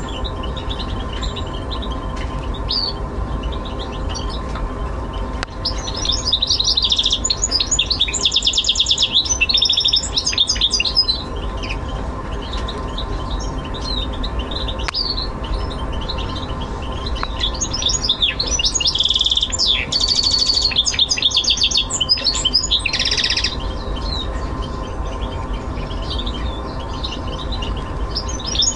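Goldfinch mule (goldfinch × canary hybrid) singing from its cage: two long runs of song, about a quarter of the way in and again past the middle, with short chirps between. A steady low hum runs underneath.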